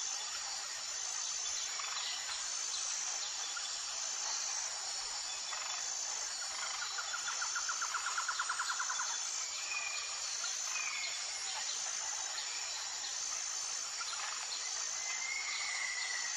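Outdoor nature sound of insects trilling steadily in a high, even pulse, with a rapid chattering call about seven seconds in and a few short bird calls later on.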